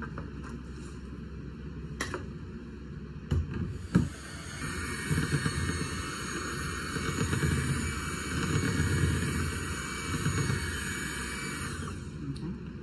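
A few sharp knocks, then a handheld electric mixer runs steadily, its beaters working through cake batter in a bowl, for about seven seconds before switching off.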